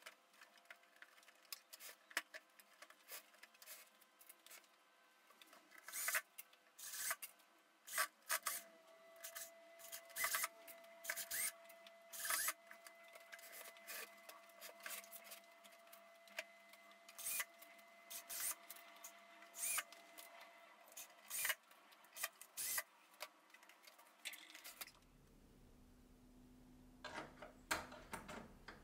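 Light clicks, taps and rubbing from metal brackets and bars being handled and fitted against the panels of a flat-pack enclosure during hand assembly, in an irregular scatter that is busiest in the middle.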